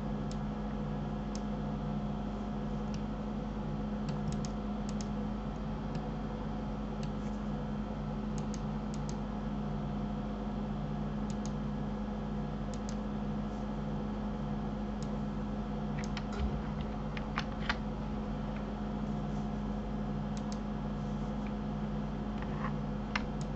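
Scattered clicks of a computer keyboard and mouse, a few at a time with gaps between, over a steady low electrical hum.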